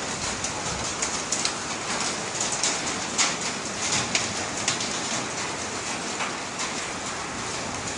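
Volcanic rain of mud, sand and small stones falling from the Taal eruption cloud: a steady patter with many sharp ticks of grit and pebbles striking hard surfaces, a few noticeably louder than the rest.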